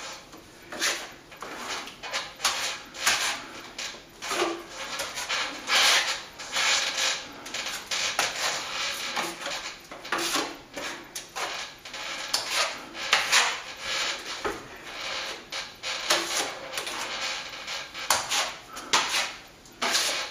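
Steel broad knife scraping cornice adhesive onto a bare concrete ceiling slab: short scraping strokes, one every second or so.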